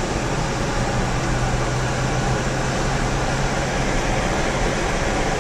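Steady road and engine noise inside a moving car's cabin, with a low drone that fades out about three and a half seconds in.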